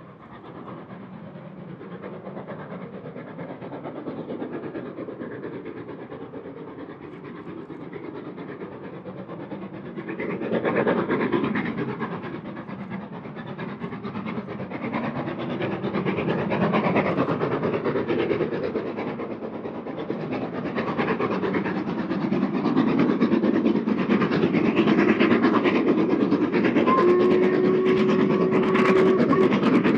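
Steam-hauled train running on the line, growing louder as it approaches, with rail and coach noise. A brief steady tone sounds near the end.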